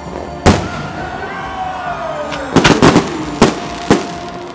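Fireworks going off: a single sharp bang about half a second in, a falling whistle, then a quick cluster of bangs and two more single reports near the end.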